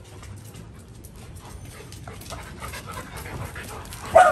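Labrador retrievers panting as they sniff each other, then one dog gives a single short, loud, high cry about four seconds in.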